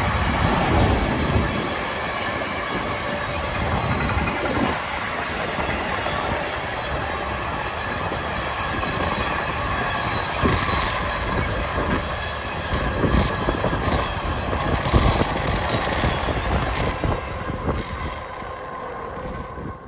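Freight train of loaded double-deck car-carrier wagons rolling past: a steady rumble and rail noise broken by the clack of wheels over the rails. It dies away near the end as the last wagon goes by.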